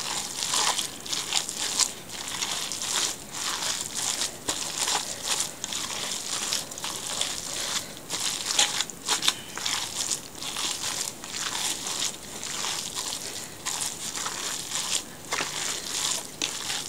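Hands kneading and squeezing a wet mixture of ground cod, grated carrot, onion, egg and breadcrumbs in a stainless steel bowl: an irregular run of squishing, crackling noises several times a second as the mix is pressed against the metal.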